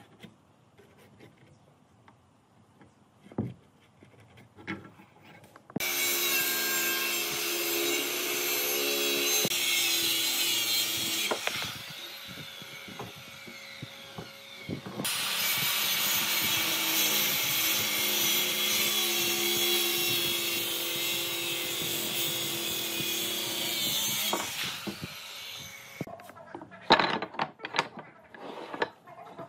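A power tool working wood in two long runs, one starting about six seconds in and one from about halfway, with a quieter lull between them. Before and after the runs there are a few knocks of wood being handled.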